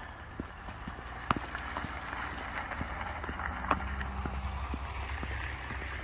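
A car's tyres hissing on the wet, slushy road as it drives past, with a low engine rumble, building from about a second in. Footsteps on the wet pavement tap about twice a second throughout.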